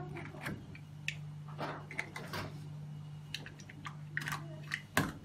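Hands handling plastic reagent tubing and connectors: scattered small clicks and taps, with a sharper knock near the end, over a low steady hum.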